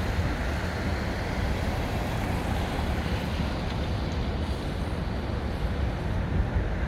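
Wind buffeting the microphone in a continuous low rumble, over the steady rush of city street traffic.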